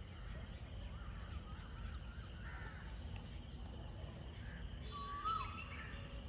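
Outdoor bird calls: a few faint short calls, then one clearer call about five seconds in, over a steady low rumble.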